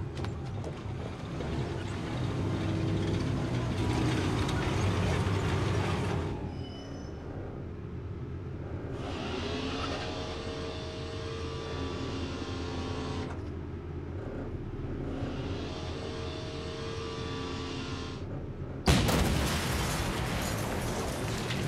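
A tank's engine running and its steel tracks clanking and squealing as it moves over cobblestones. Near the end there is a sudden loud blast from the tank's gun.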